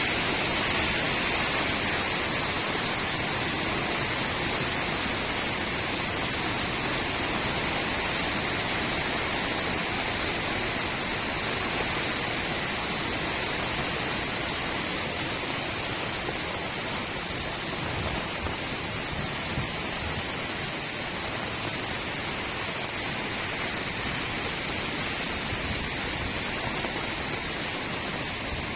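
Steady rain falling on a street, an even hiss with no single drops or knocks standing out.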